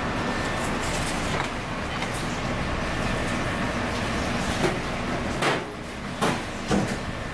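Steady rushing background noise of a working commercial kitchen, with four short, sharp knocks in the second half as the bamboo basket and board are handled on the steel counter.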